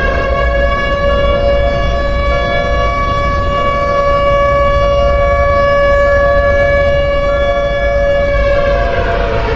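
Civil defence warning siren sounding one long tone. It holds a steady pitch for about eight seconds, then begins to wind down near the end.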